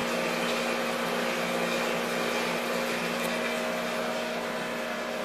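Steady mechanical hum with a few held tones, unchanging throughout.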